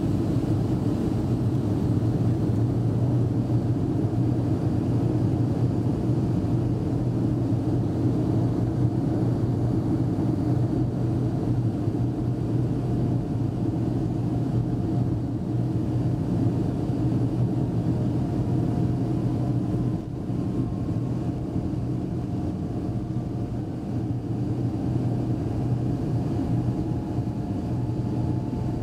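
Avro RJ100's Honeywell LF507 turbofan engines running steadily, heard from inside the cabin: a continuous low hum with a faint whine. The whine rises slightly in the last several seconds.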